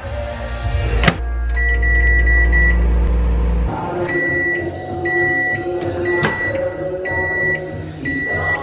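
Microwave oven: the door clicks shut, the oven runs with a steady low hum for a few seconds, then stops and beeps repeatedly at a high pitch to signal the end of the cycle, and the door is opened near the end.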